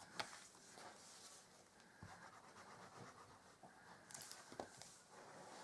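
Faint rubbing and rustling of cardstock under hands as the pink paper box blank is pressed flat, with a light tick just after the start and a short scrape about four seconds in.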